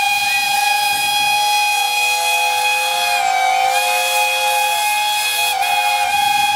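Steam whistle blowing one long continuous blast with steam hiss, several tones held together with small wavers in pitch.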